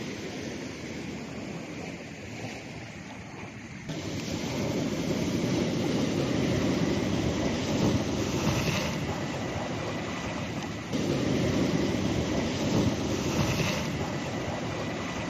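Ocean waves washing in with wind buffeting the microphone: a steady rushing noise that gets suddenly louder about four seconds in, eases off, and jumps up again about eleven seconds in.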